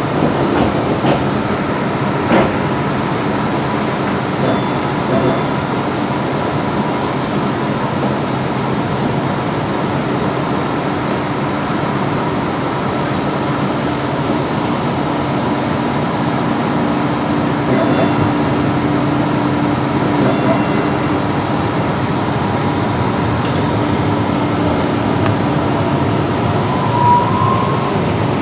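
Inside a DART Kinki Sharyo light rail car while the train is running: a steady rumble of wheels and running gear with a constant low hum and a few short clicks.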